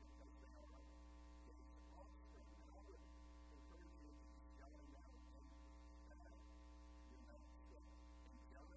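Near silence with a steady electrical mains hum and its overtones.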